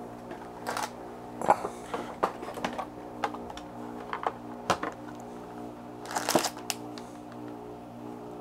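Small metal Torx driver bits clicking and rattling against each other and their case as they are picked through, in scattered sharp clicks with a short flurry about six seconds in. A steady low hum runs underneath.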